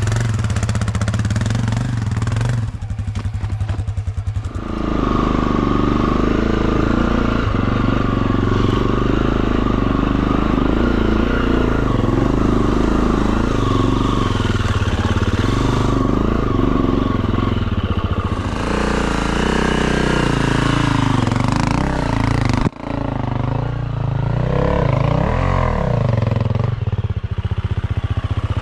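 Enduro dirt bike engine running while riding off-road: it chugs at low revs for the first few seconds, then picks up and revs rise and fall with the throttle, with a brief sharp drop about three-quarters of the way through.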